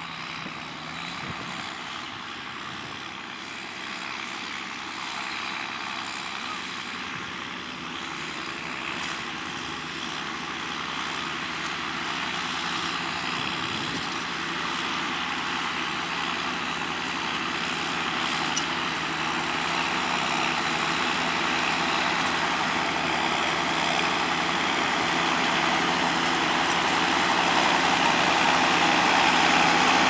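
John Deere 6620 and New Holland TM120 tractors ploughing, their six-cylinder diesel engines running steadily under load and growing louder as they come closer.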